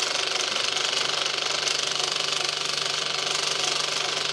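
1960s cinema film projector running, its film-advancing mechanism making a rapid, even clatter over a steady low hum.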